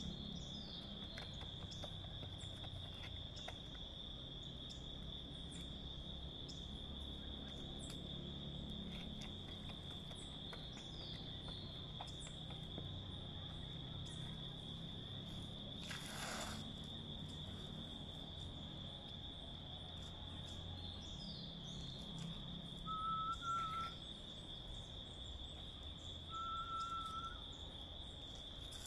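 Outdoor ambience of insects droning steadily on one high pitch over a low rumble. A short, brief swish comes about halfway through, and a bird gives a short level whistled note twice near the end.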